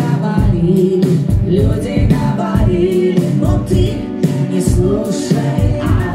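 A live pop-rock band plays under a woman's lead vocal, with a steady kick-drum beat, heard from the audience in the hall.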